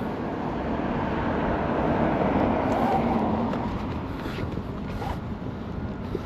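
A road vehicle passing by: engine and tyre noise that swells to a peak a couple of seconds in, then fades away.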